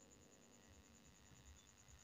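Near silence: room tone with a faint high pulsing tone.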